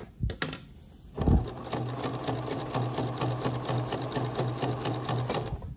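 Electric sewing machine: a few clicks and a thump, then it runs steadily for about four seconds with an even patter of needle strokes and stops near the end. It is sewing a row of long gathering stitches without backstitching.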